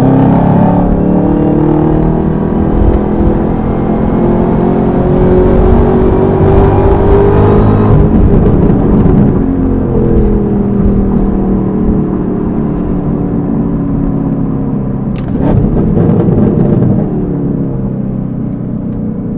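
Chevrolet Camaro ZL1's supercharged 6.2-litre V8, breathing through a Rotofab cold air intake and an MRT cat-back exhaust, pulling under acceleration. Its pitch climbs over the first several seconds, drops, then climbs again, with a louder burst about fifteen seconds in.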